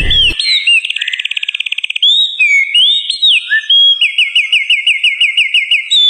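A bird singing clear whistled notes: gliding chirps, a fast trill about a second in, and later a steady run of about ten repeated slurred notes, roughly five a second.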